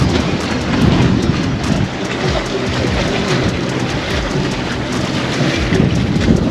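Steady wind rumbling on the microphone over rushing water from a boat under way.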